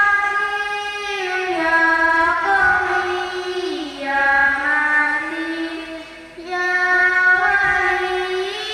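A girl's voice chanting through a microphone in long, ornamented held phrases, with brief pauses for breath about four and six seconds in.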